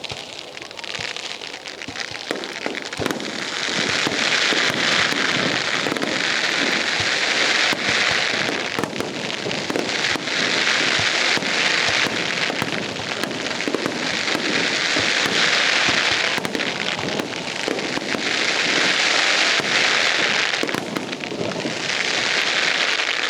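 Aerial fireworks crackling: dense showers of crackle swell and fade in waves about every four seconds, with sharp bangs and pops mixed through.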